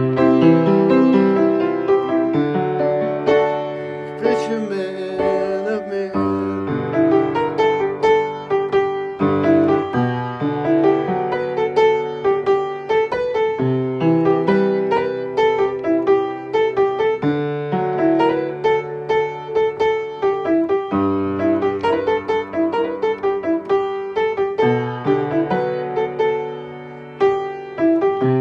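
Solo piano instrumental passage: repeated struck chords over sustained bass notes that change every few seconds, easing off briefly near the end before picking up again.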